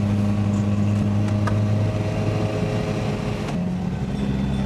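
Camper van engine running steadily, heard from inside the cab as it drives. About three and a half seconds in, the engine note drops to a slightly different pitch.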